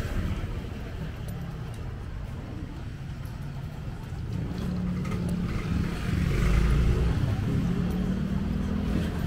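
A motor vehicle's engine running close by on a street, growing louder about halfway through, over general street noise.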